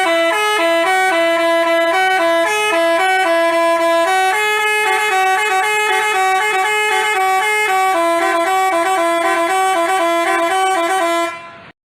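Basuri telolet bus horn playing a melody of short and held stepped notes, several horn tones at once, breaking off abruptly near the end.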